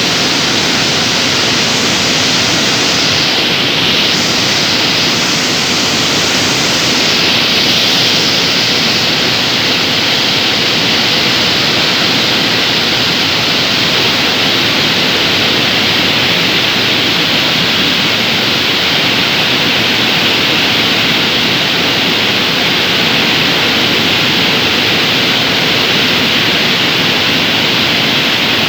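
Steady, loud hissing noise of a hot strip mill's reheating furnace area, unbroken and without rhythm.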